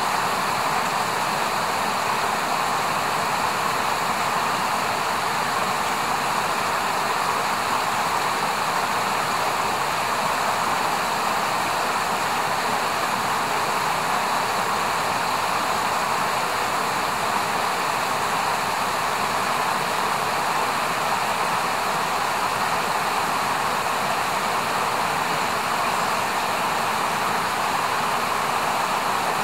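Steady, even rush of a flowing river.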